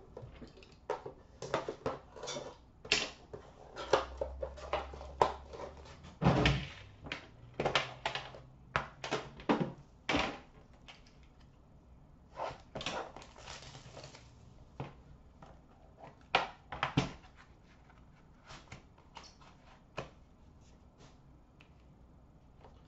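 A metal Upper Deck The Cup hockey card tin and the cardboard card box inside it being opened and handled on a glass counter. Irregular clicks, knocks and short scrapes, with one heavier thump about six seconds in.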